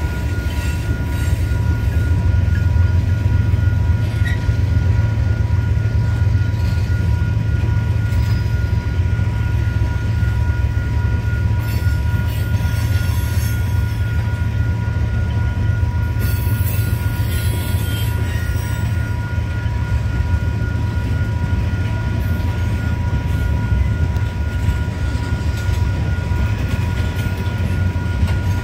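Freight train of tank cars rolling past: a steady heavy low rumble of wheels on rail. Two steady high tones sound over it, and brief bursts of high-pitched noise come twice around the middle.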